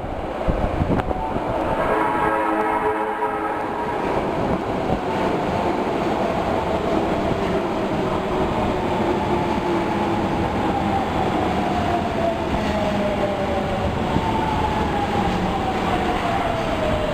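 Osaka Metro Tanimachi Line subway train running, with a short horn about two seconds in. Later a whine falls steadily in pitch over the running noise.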